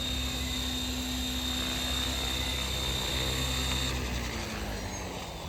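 Electric T-Rex 550L RC helicopter with Rotor Tech 530 blades running with a steady high motor whine; about four seconds in the throttle is cut and the whine starts to fall as the rotor spools down.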